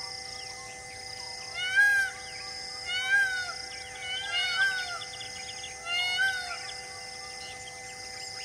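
An animal calling loudly four times, each call a short cry that rises and falls in pitch, over a steady high-pitched drone.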